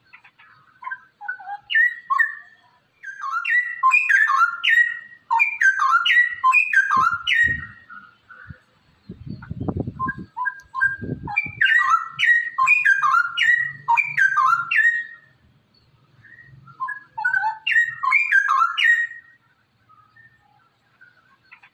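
Straw-headed bulbul (cucak rowo) singing its rich, bubbling warble in four fast phrases of sweeping whistled notes, with short pauses between them. A brief low rumble comes about halfway through.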